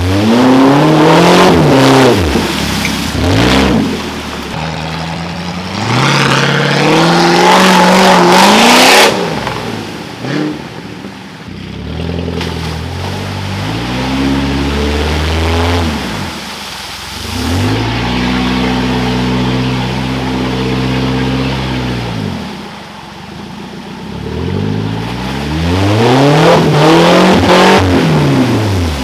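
Four-wheel-drive vehicle's engine revving hard in repeated bursts, pitch climbing and dropping, as it pushes through deep mud with wheels spinning and slinging mud. The engine is held at a steady pitch for a few seconds in the middle, then revs up hard again near the end.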